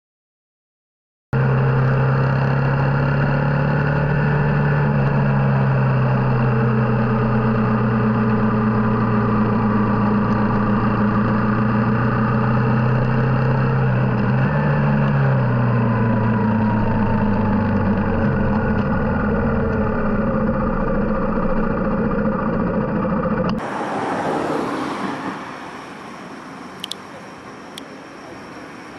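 Yamaha XTZ125's single-cylinder four-stroke engine, through its newly replaced muffler, running steadily while riding, with small rises and dips in pitch. About 23 seconds in it cuts off, leaving quieter street ambience with two sharp clicks.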